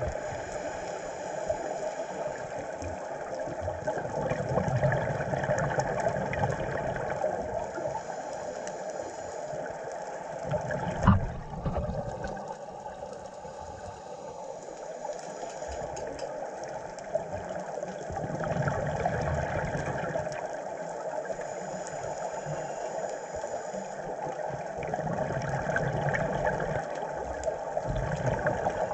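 Scuba breathing heard underwater: exhaled bubbles from regulators gurgle and hiss in swells that come and go every few seconds. There is a single sharp knock about eleven seconds in.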